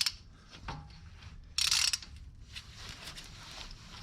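Hand ratchet wrench clicking in a short quick run about one and a half seconds in, turning out a 14 mm rear hub assembly bolt, with a few lighter clicks of the tool before it.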